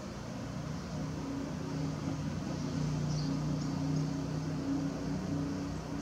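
A steady low mechanical hum, like an engine or motor running, swelling slightly in the middle. A few faint high chirps come about three seconds in.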